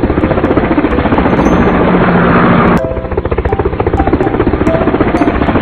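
Helicopter rotor sound, a loud rapid steady chopping, which breaks off briefly and starts again about three seconds in.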